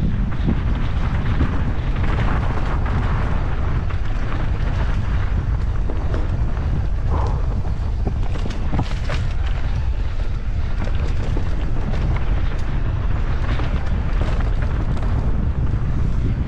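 Wind buffeting the microphone of a camera on a mountain bike riding a dirt trail, a steady low rumble with scattered knocks and rattles from the tyres and bike over the ground.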